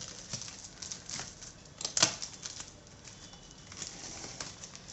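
Packaging being handled during an unboxing: irregular rustling and crackling with scattered clicks, one sharper click about two seconds in.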